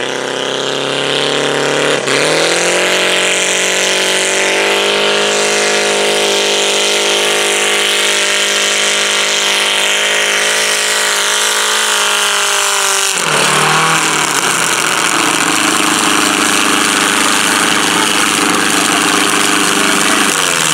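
Modified garden tractor engine revving up sharply about two seconds in and held at high revs under load as it pulls the weight sled, its pitch creeping slightly higher. About thirteen seconds in the revs drop suddenly, and the engine runs on at a lower, steady speed.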